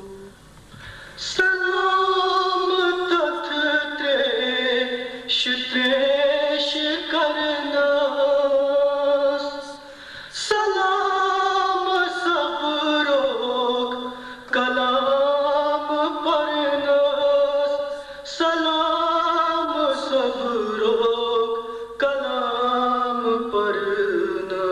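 A male voice chants a Kashmiri nauha, a Shia mourning elegy, in long drawn-out phrases that slide in pitch. Each phrase lasts about four seconds, with a short break before the next.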